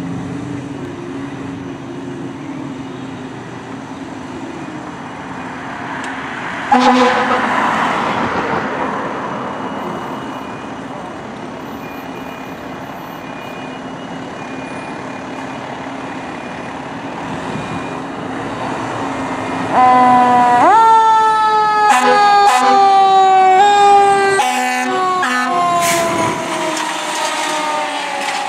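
A fire engine's diesel engine runs steadily. About seven seconds in comes a short, loud horn blast and a surge of noise that fades over a few seconds. About twenty seconds in the siren winds up sharply and then slowly falls in pitch as the truck pulls away on an emergency response.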